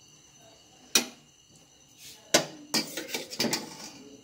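A metal spoon knocking and scraping against an aluminium cooking pot: one sharp knock about a second in, a louder one a little past the middle, then a quick run of clinks and scrapes.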